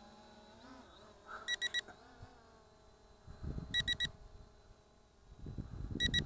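ZLRC SG906 Pro drone's remote controller beeping: three quick high beeps, repeated about every two seconds, the signal that headless mode is on. A low rumbling noise comes in about halfway through and again near the end.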